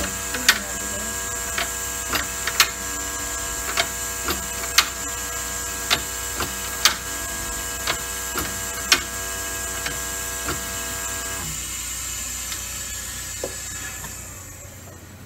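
Air-powered needle seeder working over a plug tray: a steady hum and a high air hiss, with sharp clacks from the needle mechanism about once a second. About three-quarters of the way through, the hum stops and the clacks end. The air hiss fades near the end.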